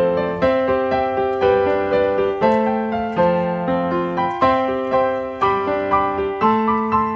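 Background piano music: a steady, gentle melody of chords changing about every half second.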